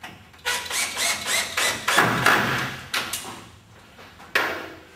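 Cordless drill driving a screw into a timber door jamb: a run of short pulses, then a longer steady run, followed by a sharp knock about four seconds in.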